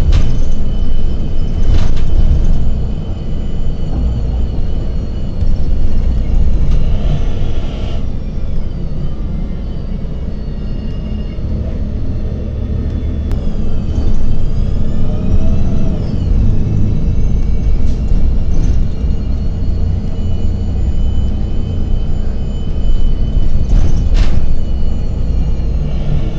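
New Flyer city bus under way, heard from inside: a steady low rumble with a thin mechanical whine that dips and then climbs again about halfway through, and a couple of sharp knocks near the start and near the end.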